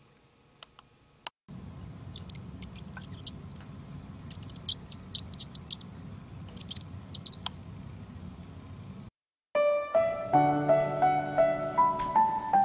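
A low rumble with many scattered sharp clicks and scratches from a mouse moving in a clear plastic exercise ball on carpet. After a brief cut to silence, piano music starts about ten seconds in and is the loudest sound.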